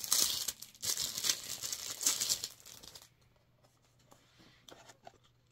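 Packaging crinkling and tearing as it is pulled open by hand for about three seconds, then a few faint rustles.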